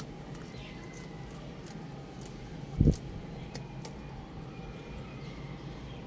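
Scattered light clicks of chickens pecking food, over a steady low background hum, with one loud low thump about three seconds in.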